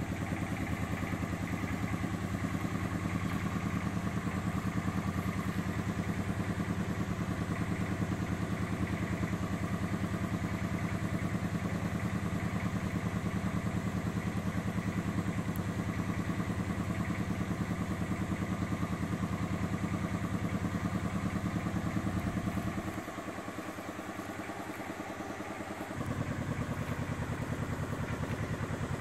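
A small engine running steadily, a low even hum. Near the end it drops quieter and lower for about three seconds, then comes back.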